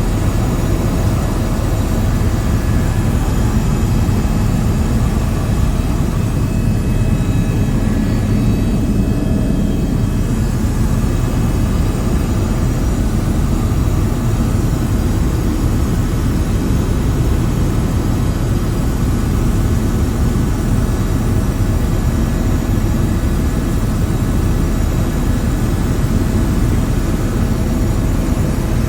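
Aircraft engine drone, steady and loud, with the noise heaviest in the low end and no change from start to finish.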